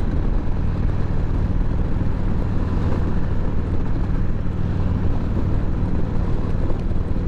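Harley-Davidson Sportster's V-twin engine running steadily at cruising speed, with steady wind and road noise over it.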